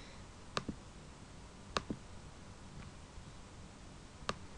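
Computer mouse button clicked three times, spaced one to two and a half seconds apart, each a sharp press followed at once by a softer release click.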